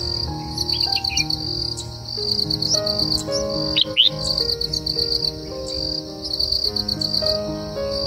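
Crickets chirping in rhythmic pulsing trills over soft background music with sustained, slowly changing notes. A few short rising bird chirps come through, the loudest about four seconds in.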